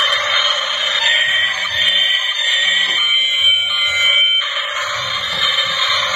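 Battery-operated light-up toy train playing an electronic tune through its small built-in speaker as it rolls, thin with no bass, the tune changing about three seconds in.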